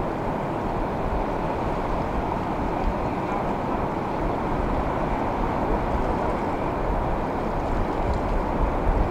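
Steady wash of ocean surf at the pier, with wind buffeting the microphone in low, uneven rumbles that grow stronger in the second half.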